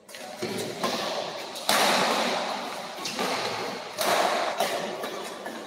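Badminton rackets striking the shuttlecock in a fast doubles rally, a string of sharp hits with the loudest about two and four seconds in. Each hit echoes through the large hall.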